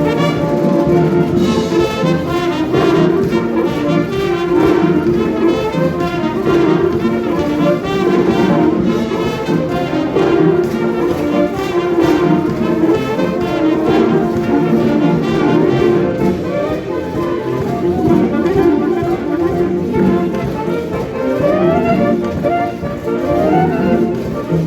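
A concert band playing, with the brass section prominent in full, sustained ensemble chords; near the end, quick rising runs stand out above the chords.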